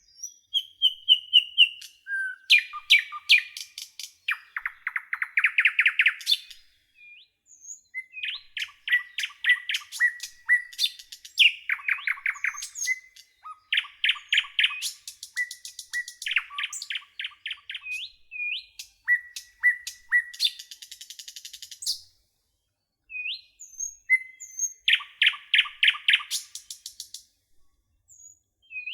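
Songbirds singing: phrases of fast trilled notes, each a second or two long, with single chirps and short pauses between them.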